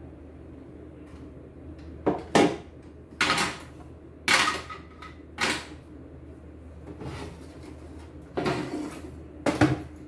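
Irregular knocks and clatters of hard plastic machine parts and tools being handled and set down on a wooden workbench while an embroidery machine is taken apart, about seven over the last eight seconds. A steady low hum runs underneath.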